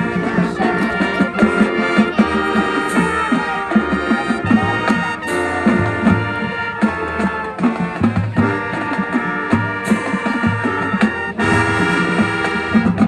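Marching band playing: loud, held brass chords over drums, with cymbal crashes every few seconds.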